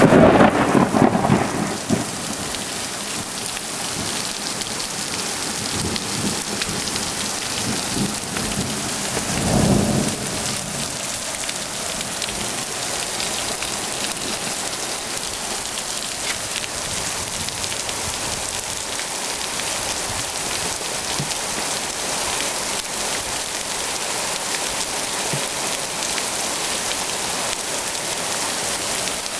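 Heavy rain pouring steadily in a flash thunderstorm, with thunder rumbling at the very start and again about ten seconds in.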